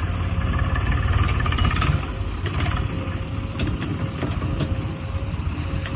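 Heavy diesel engine running, louder for the first two seconds with a faint whine over it, then settling back, with a few short knocks later.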